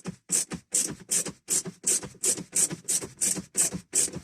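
Ratcheting screwdriver undoing a T20 Torx screw, its ratchet rasping in short even strokes about two and a half times a second.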